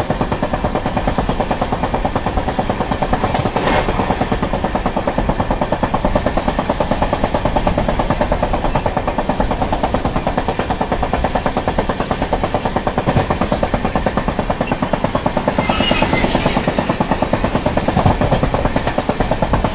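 Indian passenger train running at speed, heard from an open coach door: a steady rumble with a rapid, even clatter of wheels on the rails. A single clank comes about four seconds in, and there is a brief high screech late on.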